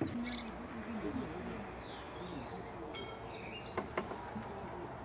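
Two sharp wooden knocks close together about four seconds in, from the formwork boards being handled. Under them is faint outdoor background with distant voices and a bird chirping.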